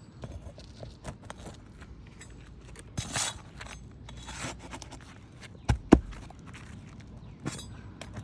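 Scraping and sharp knocks of hand tools working nails out of asphalt roof shingles, with a longer scrape about three seconds in and two loud knocks close together near six seconds.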